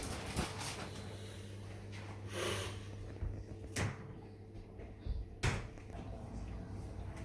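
Panasonic fully automatic washing machine running mid-wash with a steady motor hum, broken by a few sharp knocks at irregular intervals and a short swish. This is the abnormal noise that began after about ten years of use.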